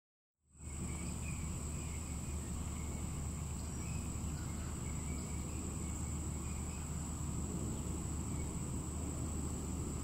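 Outdoor summer ambience: insects trilling in one steady, unbroken high-pitched tone over a low steady rumble, with a few faint bird chirps in the first couple of seconds. It fades in about half a second in.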